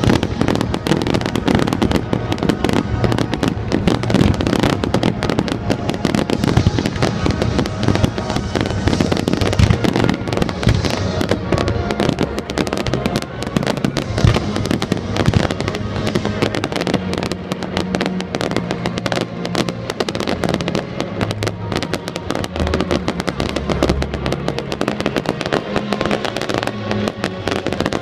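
Fireworks display: aerial shells bursting and crackling in a dense, continuous barrage, with music playing along that becomes clearer in the second half.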